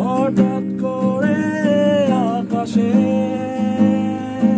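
Live acoustic guitar strummed in a steady rhythm, with a singer holding and sliding through a melody over it in the first half; the singing drops away and the strumming carries on.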